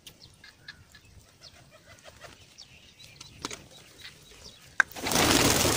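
A flock of domestic pigeons feeding from a hand, with faint pecks, shuffles and soft bird sounds. About five seconds in, a sudden loud rushing noise starts and swamps them.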